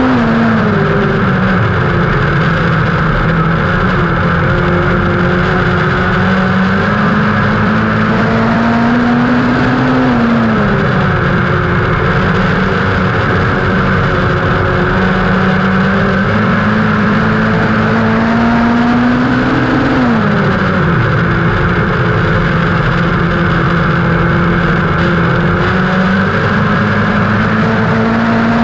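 Midget race car engine heard from the cockpit at racing speed on a dirt oval. The engine note climbs steadily, then falls sharply each time the driver lifts off for a turn, about every ten seconds. Wind and tyre noise make a constant rush underneath.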